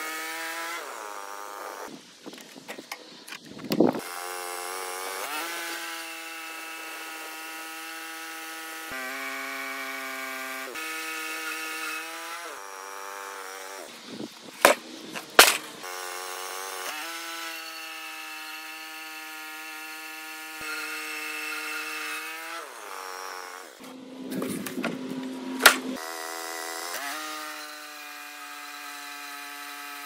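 Portable bandsaw sawmill cutting through a log: its engine runs under load with the blade in the wood, a steady drone that shifts pitch several times. Three times there are noisier stretches with a few sharp, loud knocks.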